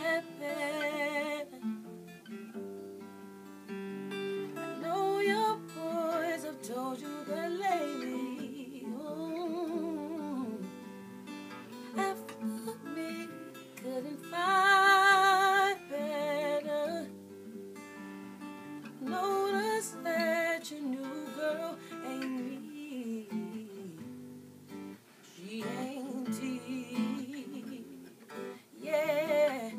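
An acoustic guitar being picked and strummed in a slow accompaniment, with a female voice singing wordless runs and ad-libs over it in several phrases. The voice wavers in vibrato and is loudest about halfway through.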